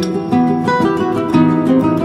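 Background music: a plucked guitar playing a quick run of separate notes.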